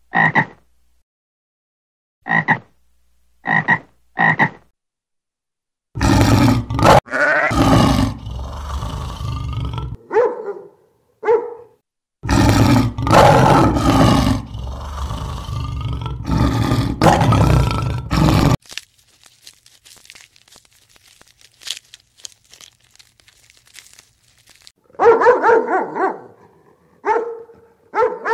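A tree frog's short croaks, a few of them about a second apart. About six seconds in, a lion roars in two long, loud bouts with short grunts between them. Near the end, Shiba Inus bark in short calls.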